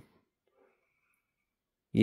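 Near silence: room tone, with a faint thin high tone for about a second in the middle.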